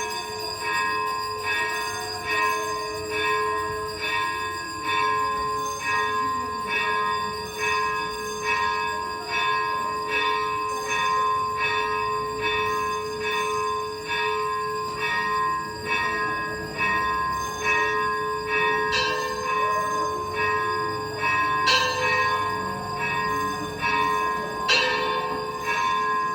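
A bell struck over and over at a steady pace, about one and a half strokes a second, each stroke overlapping the ring of the last.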